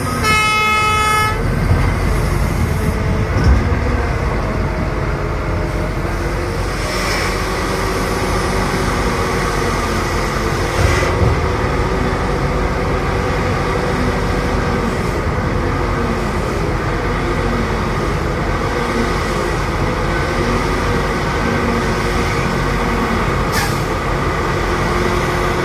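Heavy mining machinery running steadily: a large diesel hydraulic excavator at work, with a few knocks and clanks. A horn blasts for about a second at the very start.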